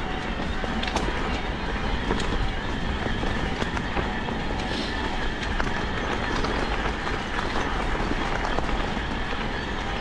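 Mountain bike riding down a dirt and leaf-strewn trail: steady tyre roll and rattle of the bike over rough ground, with many small clicks and knocks and wind rumbling on the microphone. A faint steady whine runs underneath.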